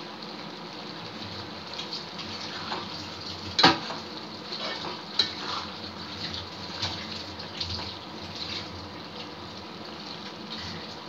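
Prawn gravy simmering and bubbling in a kadai over a gas burner, with a metal ladle scraping and knocking against the pan as it is stirred; the loudest is a single sharp knock a little under 4 seconds in.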